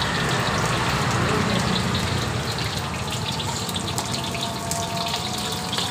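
Battered chicken pieces frying in hot oil in a steel wok: a steady sizzle over the low rumble of the gas burner, with a few scrapes of the steel spatula in the second half.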